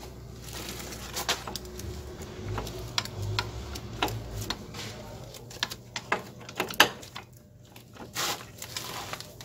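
Irregular metallic clicks and taps from a Mercedes-Benz Sprinter 310D rear drum brake as the brake shoe and its spring are worked by hand onto the push rod of a new wheel cylinder; the sharpest click comes about seven seconds in, with a low rumble in the middle.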